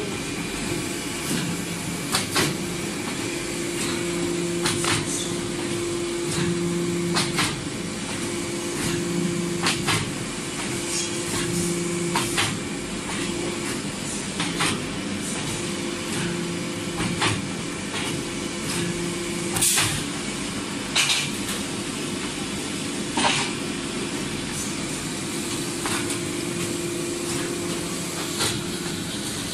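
Automatic optimizing wood cross-cut saw running: a steady machine hum that swells and drops every couple of seconds, with sharp knocks and clunks every two to three seconds, the loudest about two-thirds of the way through.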